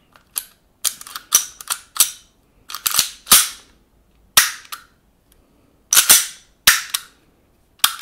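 WE Glock 19 airsoft gas blowback pistol being reassembled by hand: a series of sharp plastic-and-metal clacks as the slide and slide lock lever are fitted, some with a short sliding rasp as the slide runs on the frame.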